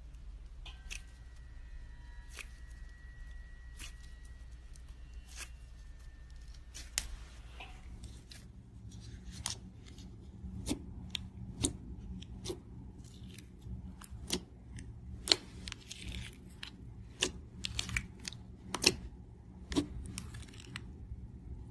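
Clear slime being handled, giving sharp, irregular clicks and pops. They are sparse at first and come more often and louder from about halfway through.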